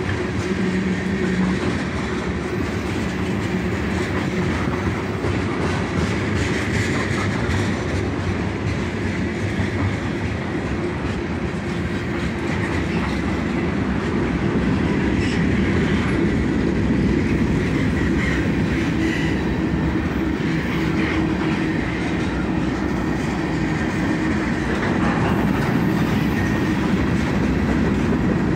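Freight train of tank cars and covered hoppers rolling steadily past at close range, the wheels clacking over the rail joints.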